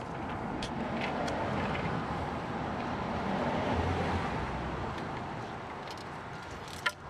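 A road vehicle passing by, its noise swelling to a peak about halfway through and then fading. A sharp click near the end.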